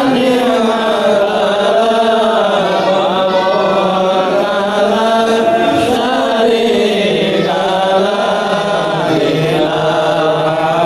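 Voices chanting a devotional Islamic song together in long, held melodic phrases.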